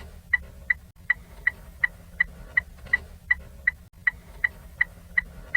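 Ford Fiesta turn-signal indicator ticking: quick, even, sharp clicks, a little under three a second.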